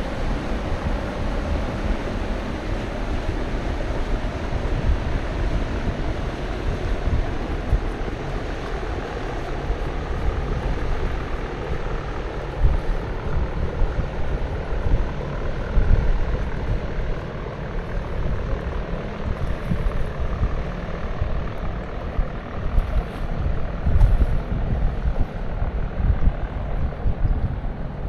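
Wind buffeting the microphone in irregular gusts over a steady low rumble, with no horn or voices.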